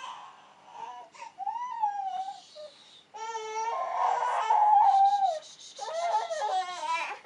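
A baby's voice: a run of whimpering cries and babbling calls, each sliding up and down in pitch, the longest lasting about two seconds in the middle.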